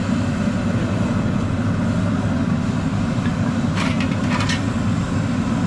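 Steady low rumble of road traffic, with a few short clicks about four seconds in.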